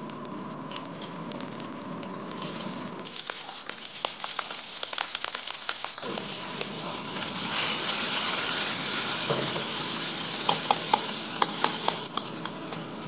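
Oil and soy sauce sizzling and crackling in a hot wok, the hiss swelling past the halfway point. Near the end come several sharp knocks as the wok spatula works through the pan.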